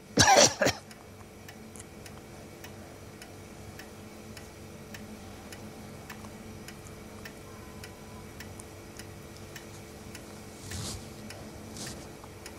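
A clock ticking steadily through a long silence in a small room. A short loud voice sound comes right at the start, and two soft rustling sounds come near the end.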